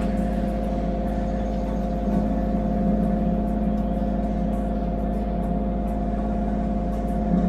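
Kubota U35-4 mini excavator's diesel engine running steadily, with a steady high whine over the engine note. It is the whine the owner hears when the air conditioning and hydraulics are in use, and he does not know its cause.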